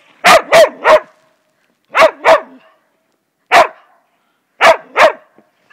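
A Portuguese Podengo barking: three quick barks, then two, then one, then two more, each short and sharp.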